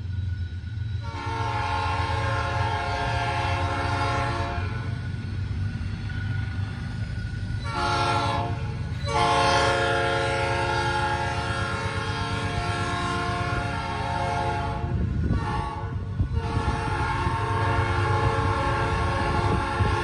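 Diesel freight locomotive's air horn blowing four blasts, long, short, long and long, over the steady low rumble of the train.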